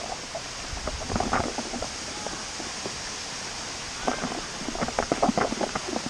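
Small waterfall splashing into a rock pool, a steady rushing hiss. Short bursts of closer sounds break in about a second in and again from about four seconds to near the end.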